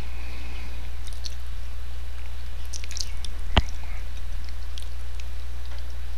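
Steady low hum with faint scattered ticks, and one sharp click about three and a half seconds in.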